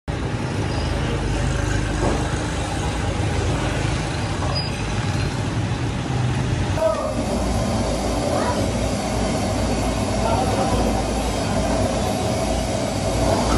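Steady background rumble with indistinct voices. Street ambience over the shopfront, changing abruptly about seven seconds in to a different steady roar with chatter at the cooking pot.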